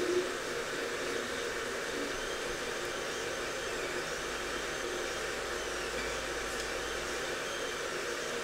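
Creality CR-10 3D printer running: a steady fan whir with faint high whines that rise and fall as its motors move.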